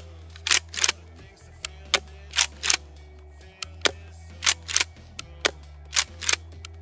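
Trigger of a Tokyo Marui KSG gas shotgun being pulled and let back out over and over, giving about a dozen sharp clicks, mostly in pairs about a third of a second apart: the trigger breaking and then its audible reset.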